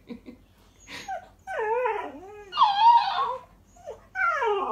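Alaskan Malamute 'talking', making long, wavering, whiny calls that bend up and down in pitch. Two come about a second and a half in, and a third starts near the end.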